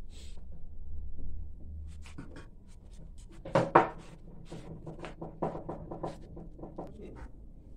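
Clinks and taps of aluminium steamer pans and steel dishes being handled, with a louder clatter about three and a half seconds in as a steamer tier is lifted, over a low rumble that fades after about two seconds.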